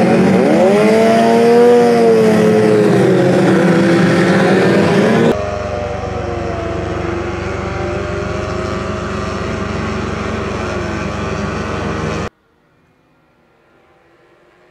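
Racing outboard engines of several tunnel-hull powerboats revving together, their pitches rising and falling, then running steadily at speed. About twelve seconds in the sound drops abruptly to a faint buzz.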